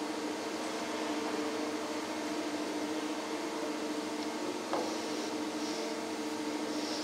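Steady machine hum from a hydraulic cold plate-forming press, with a faint click about four and a half seconds in.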